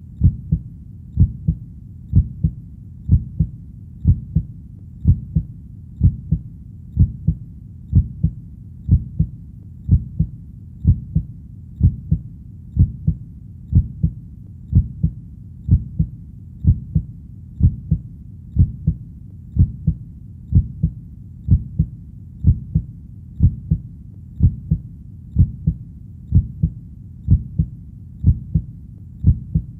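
Heartbeat: a steady, even rhythm of low double thumps (lub-dub), about one beat a second.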